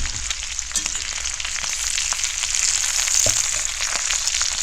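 Chopped cabbage and potatoes with bacon frying in hot lard and Crisco in a cast iron skillet: a steady sizzle with fine crackling.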